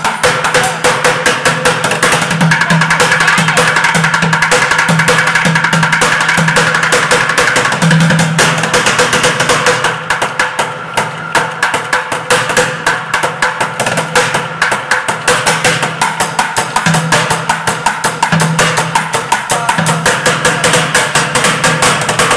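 Bucket drumming: drumsticks beating a fast rhythm on upturned plastic five-gallon buckets, rapid sharp strokes on the rims and sides mixed with recurring low, hollow hits on the bucket heads. The playing eases briefly around the middle before picking up again.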